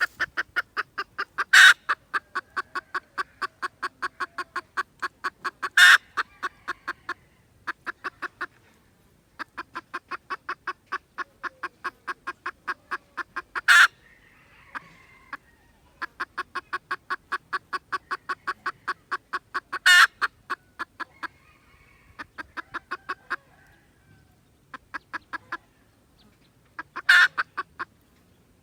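Junglefowl clucking in long, even series of about four clucks a second, broken by short pauses, with a few short, sharp, louder calls between the series.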